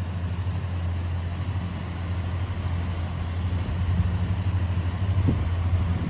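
Small motorboat's engine running with a steady low drone as the boat cruises past.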